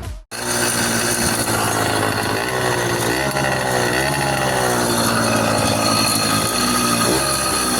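Small engine running after a rebuild with new bearings, starting abruptly just after the opening and then running steadily, its pitch stepping up and down a few times as the revs change.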